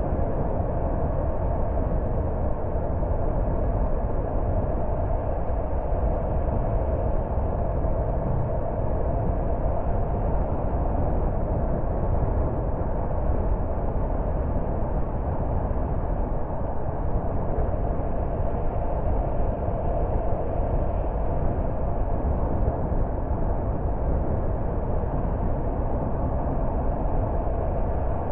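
Car driving at a steady speed: an even rumble of road and engine noise that stays level throughout, with no changes or separate events.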